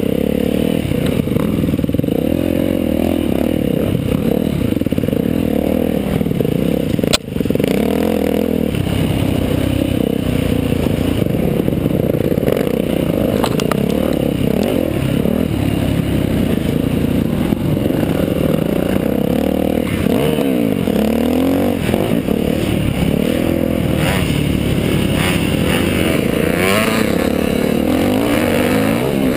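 Off-road dirt bike engine under hard riding, its pitch rising and falling constantly as the throttle is worked over rough ground, with rattling and clatter from the bike. A sharp knock sounds about seven seconds in.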